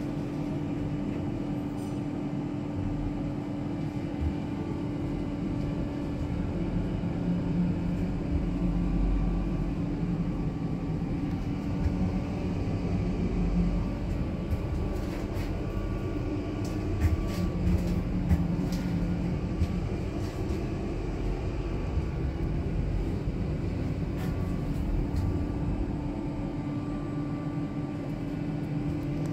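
Movilift passenger lift car travelling in its shaft: a steady hum with a low rumble underneath, a second lower tone that comes and goes, and a scatter of clicks about halfway through.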